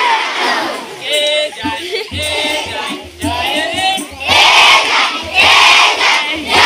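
A crowd of schoolchildren singing a Gujarati action song together with a leading voice, the many voices coming in loud bursts between sung lines.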